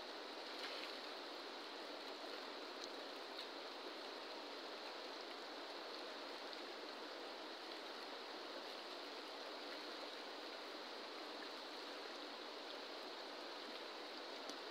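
Steady rushing of a fast-flowing, turbulent river: an even hiss of moving water that holds unchanged throughout.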